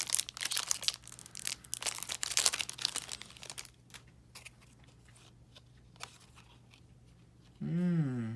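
Foil wrapper of a trading card booster pack crinkling and tearing in rapid bursts for about three and a half seconds, then a few faint clicks. A short hummed voice sound near the end.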